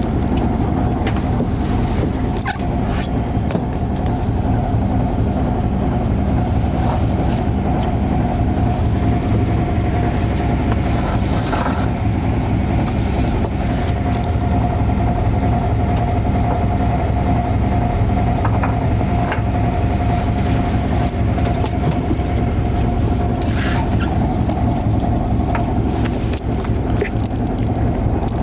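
Fishing boat's engine running steadily, a loud, even drone with a thin steady whine over it, and scattered short clicks and knocks.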